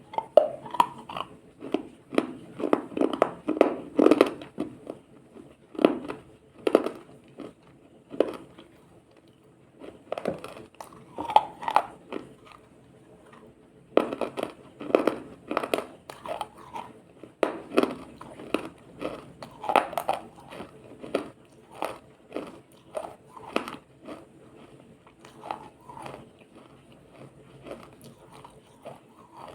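Ice being bitten and chewed close to the microphone: crisp crunches in quick clusters with short pauses between, thinning out and getting fainter near the end.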